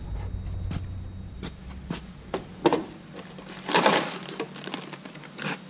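Scattered light clicks and knocks of someone handling parts at a tractor's three-point hitch, with a brief rustle of clothing close by as they step past near the middle. A low hum cuts off about halfway through.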